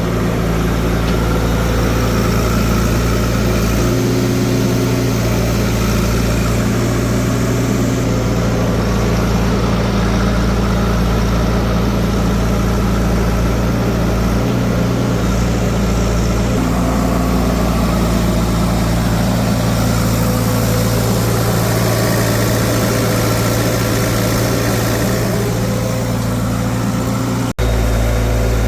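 Heavy diesel engine running steadily at low speed, close by, with a slight change in its note now and then. The sound drops out for an instant about a second before the end.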